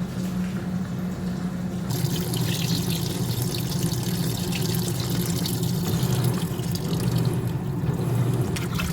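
Water from a hose pouring and splashing into the tub of a semi-automatic washing machine, getting fuller about two seconds in, over a steady low hum.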